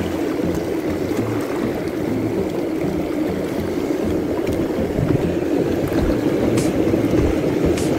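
Steady rush of sea water washing over a shallow rocky reef, with an uneven low rumble of wind buffeting the microphone.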